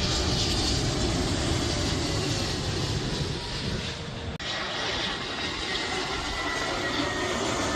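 Jet airliner engines running: a steady rushing noise with a faint whine, broken by an abrupt cut a little over four seconds in to another stretch of the same kind of sound.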